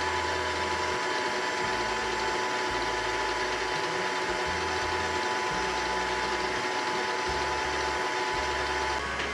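Electric stand mixer running steadily, its flat beater creaming margarine and sugar in a stainless steel bowl: an even motor whine with a couple of fixed tones.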